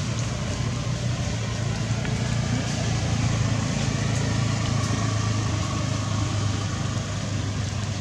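A steady low hum with an even hiss over it, unchanging throughout, with no distinct calls or knocks.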